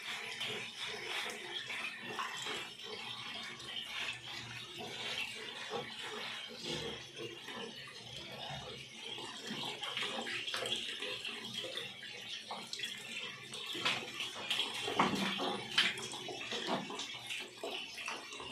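Wet washing sounds of a golden retriever being bathed: hands scrubbing and lathering shampoo through its soaked coat, with a steady hiss of water. A few sharper knocks come near the end.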